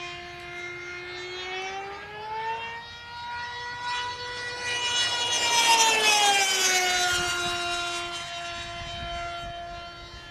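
High-speed RC delta-wing model aircraft's high-revving piston engine with a tuned pipe, running flat out as a thin, high whine while the plane makes a fast pass. The pitch climbs, the sound is loudest about six seconds in, then the pitch drops as the plane goes by.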